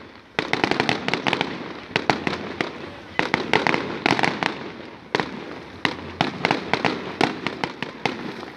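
Aerial fireworks shells bursting overhead: a rapid string of sharp bangs and crackles in several clusters, with a rumble under them.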